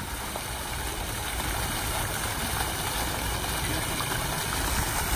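Fountain jets splashing into a stone basin: a steady, even rush of falling water.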